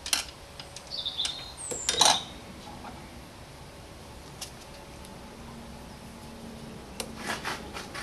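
Hard plastic clicks and knocks from hands handling the air intake parts and connectors in a car's engine bay. The loudest knock comes about two seconds in, and a short run of clicks comes near the end.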